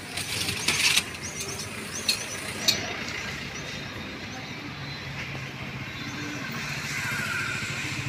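Steady street traffic noise, with a few sharp clicks and clatters in the first three seconds.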